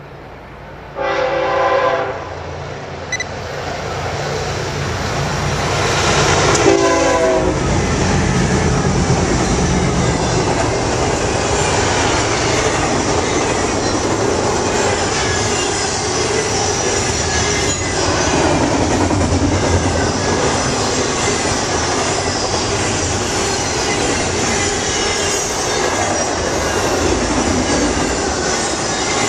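BNSF intermodal freight train passing close by. The locomotive's air horn sounds about a second in for about a second, and again around seven seconds in with its pitch dropping as the locomotive goes past. Then comes a steady rumble and clickety-clack of double-stack container and trailer cars rolling by on the rails.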